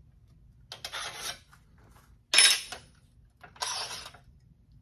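Small metal stop hardware being handled and swapped on a miter saw fence: three short metallic clatters and scrapes, the middle one about two and a half seconds in the loudest and sharpest.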